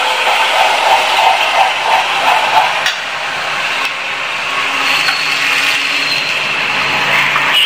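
Spice paste sizzling steadily as it fries in hot oil in a steel kadhai, with a single sharp knock about three seconds in.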